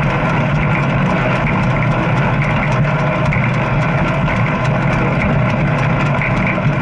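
Steady running noise of a bike on the move: a continuous low hum under a dense haze of noise, unchanging throughout.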